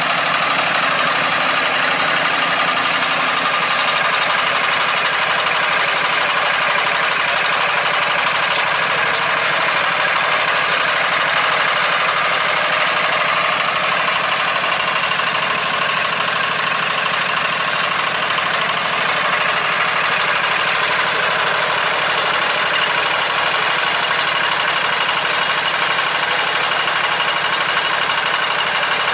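Small farm-machine engine running steadily and loudly.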